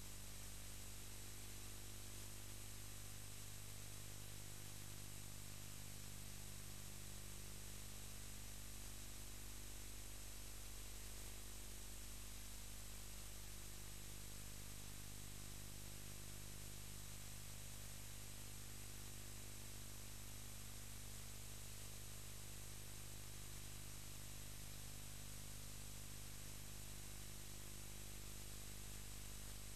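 Steady hiss with a low hum and a faint high whine, unchanging throughout, with no other sound.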